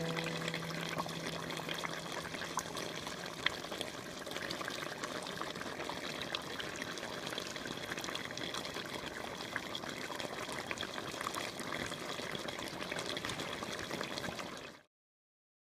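Pork humba (pork hock and ham in a thick sauce) bubbling at a simmer in a pot: a steady wet bubbling with many small pops, cutting off suddenly near the end.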